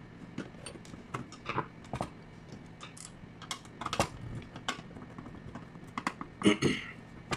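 Irregular small clicks and light metal taps from the mechanism of a DeSisti 1K light fixture being handled during a repair, with a louder short clatter near the end.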